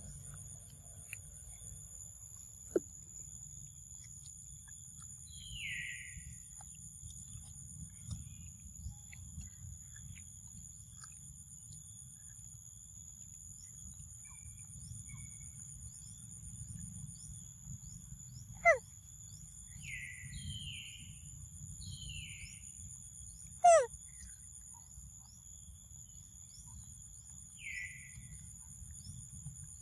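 Forest ambience: a steady high-pitched insect drone, with a bird giving short calls that drop in pitch, five times. Two loud, very brief calls sweep steeply down in pitch about a second and five seconds apart in the last half, and they are the loudest sounds here.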